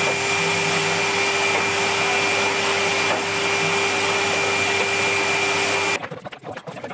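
Vacuum cleaner running steadily, its hose sucking dust off a wooden speaker baffle board: a rushing of air with a steady whine over it. It switches off suddenly about six seconds in.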